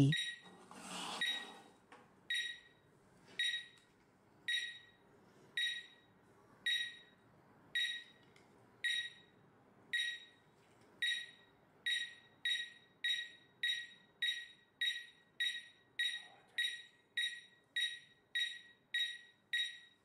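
A Visonic wireless alarm panel sounds its entry-delay warning after a door magnetic contact is opened: short high beeps, about one a second at first, speeding up to about two a second halfway through as the delay runs out before the siren.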